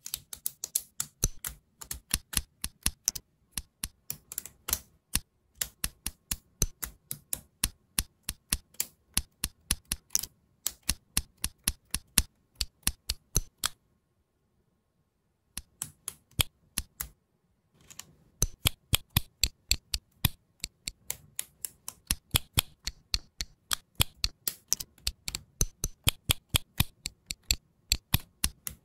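Plastic Lego Technic parts clicking and snapping as axles, bushes and beams are pushed together by hand: rapid sharp clicks, several a second, with a pause of about two seconds a little past halfway.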